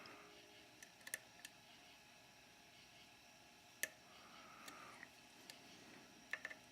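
Faint, scattered small clicks of a dimple pick working the pins of a Mul-T-Lock Classic dimple cylinder under a Z-bar tension wrench, the sharpest a little before the middle and a quick cluster near the end.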